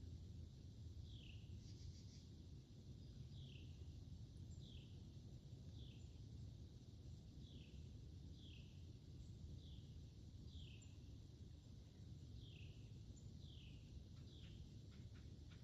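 A small songbird calling: a short, thin, falling note repeated roughly once a second, faint over a steady low background rumble.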